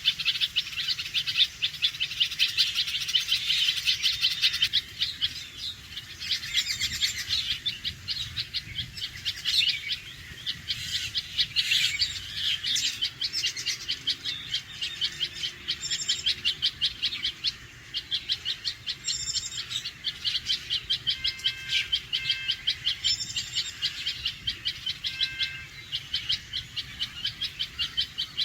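Red-vented bulbul alarm calling: a fast chatter of sharp, repeated single notes, densest in the first few seconds, then settling into a steadier pulse of a few notes a second.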